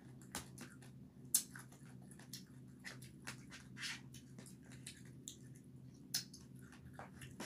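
Eating sounds up close: chewing and mouth smacks, with a plastic spoon and fork scraping and clicking in a plastic takeaway tray. They come as a string of short sharp clicks over a low steady hum.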